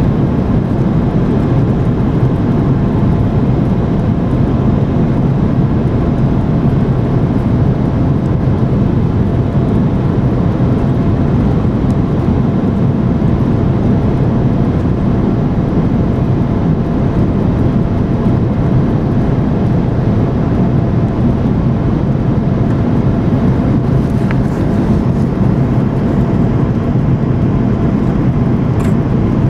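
Cabin noise of an Airbus A330 with Rolls-Royce Trent 700 engines descending on approach: a loud, steady rumble of the engines and airflow over the fuselage, with a faint steady hum.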